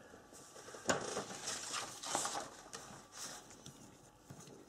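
Faint sounds of desoldering a diode from a small circuit board: a sharp click about a second in, then a few brief soft hisses.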